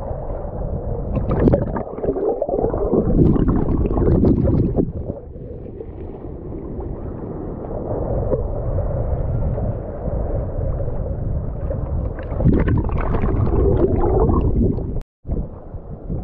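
Shallow surf water sloshing and gurgling around a camera held right at the water surface, heard muffled, with louder splashy stretches early on and again about twelve seconds in.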